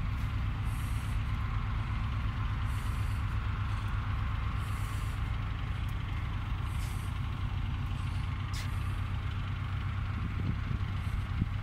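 A heavy engine idling steadily with a low, even throb.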